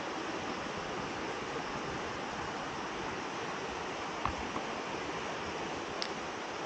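Steady rush of a creek's flowing water, with a light knock about four seconds in and a short click near the end.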